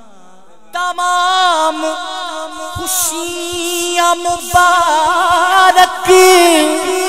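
A man's solo voice singing devotional Urdu verse into a microphone. About a second in it comes in strongly on a long, high held note with wavering melismatic turns. Short thumps are scattered under it through the middle.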